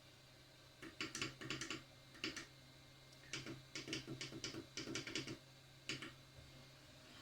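Small, light clicks and taps of metal tweezers handling and positioning a tiny surface-mount IC on a circuit board. The clicks come in short irregular clusters over a faint steady low hum.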